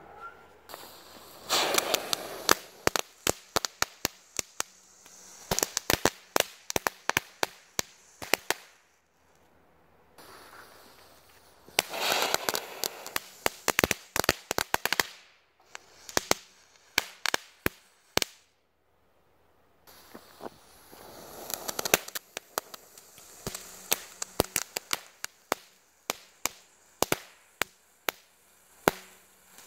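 Three Funke Star Kids crackling fountains, small ground fountains, burning one after another. Each starts with a hissing spray that quickly turns into a rapid run of sharp crackling pops, which thin out to scattered single pops before the fountain dies, with a few seconds of quiet between fountains.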